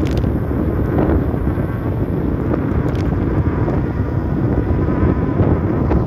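Steady wind rushing over the microphone of a rider on a Begode T4 electric unicycle travelling at about 40 km/h, mixed with the rumble of the ride.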